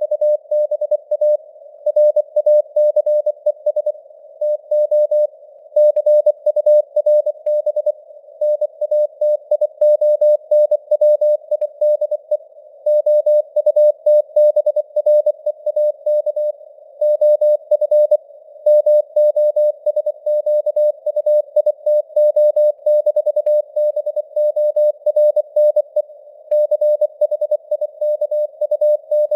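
Morse code (CW) sent at 24 words per minute: a single steady mid-pitched tone keyed rapidly on and off in dots and dashes. A faint simulated radio hiss sits around the tone and is heard between the elements.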